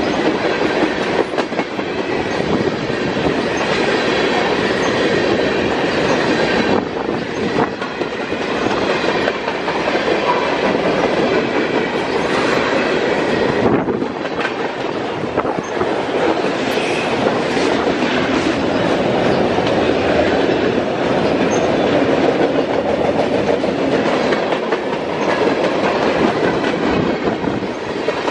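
Freight train of tank cars, autoracks and boxcars rolling past close by: a loud, steady rush of steel wheels on rail with repeated clicks as the wheels cross the rail joints.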